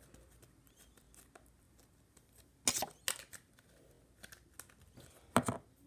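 Slime and its small plastic container being handled: a few sharp clicks and snaps, with two loud ones around the middle and another near the end.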